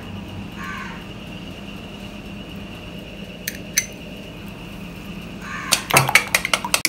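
A steady hum with two light clinks in the middle. Then, from about five and a half seconds in, a spoon beats fast against the sides of a stainless steel bowl of egg-and-milk custard mixture, clattering several times a second.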